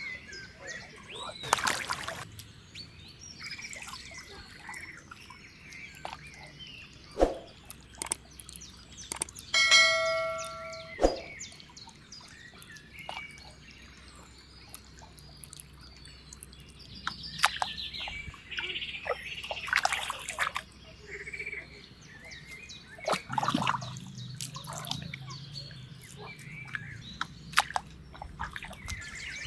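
Outdoor field sounds: scattered bird chirps among brief knocks and rustles, with one short steady pitched call about ten seconds in.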